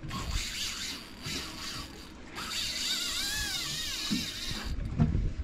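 Spinning reel working against a hooked fish: a mechanical ratcheting buzz of drag and gears. It grows louder about halfway through, with a pitch that rises and falls as line comes and goes.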